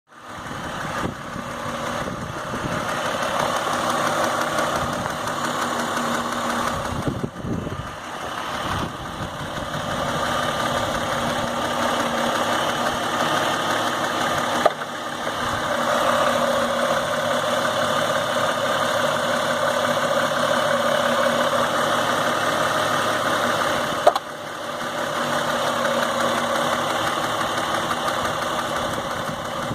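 Car engine idling with a ticking from the intake manifold, likely one or more butterfly valves rattling against the manifold. Two sharper clicks stand out.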